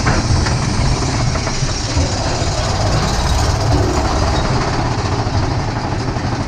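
Big Thunder Mountain Railroad mine-train roller coaster climbing its second lift hill, heard from on board: a steady, loud rattling rumble of the lift chain and the train's wheels on the track.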